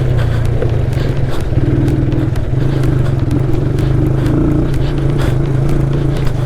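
Motorcycle engine running steadily while riding over an off-road dirt trail, with frequent short clicks and knocks over it.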